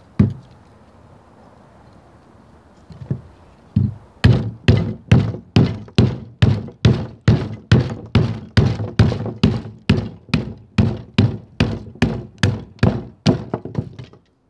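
Hickory baton stick striking the spine of a Battle Horse Knives Tree Frog knife to drive it through a heavy piece of wood (batoning). A single hard knock comes first, then two more, then an even run of heavy knocks about two a second for some nine seconds.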